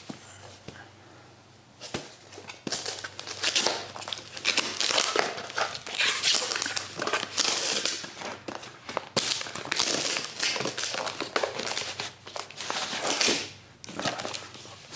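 Packaging crinkling and tearing, from about two seconds in, as a battery pack's box is opened by hand: a dense, irregular run of crackles and rustles.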